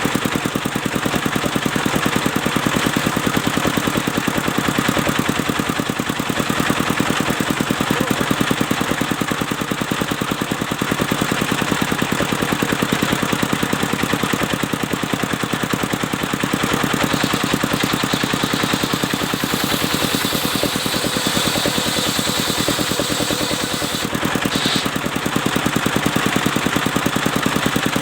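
Engine of a mobile circular sawmill running steadily with a fast, even firing pulse. About two-thirds of the way through, a higher hiss joins in.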